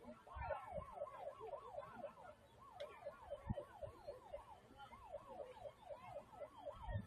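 Faint siren in a fast yelp, its pitch sweeping up and down about four times a second, with two short breaks.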